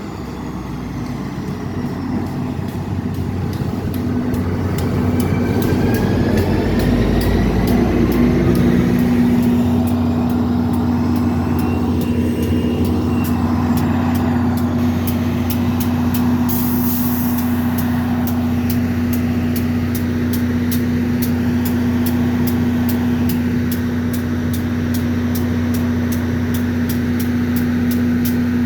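NJ Transit locomotive 4217 running with a steady low hum that grows louder over the first several seconds. Evenly spaced clicks run through the second half, typical of train wheels over rail joints, with a short air hiss a little past the middle.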